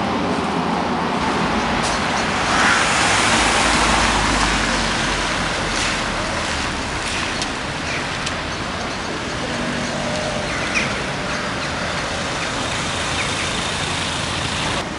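Town street traffic noise, with a car driving past close by and loudest a few seconds in.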